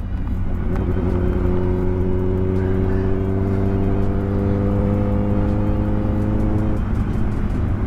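Kawasaki ZX-10R inline-four engine running at a steady speed with the bike standing still. Its upper tones drop away near the end while the low note carries on.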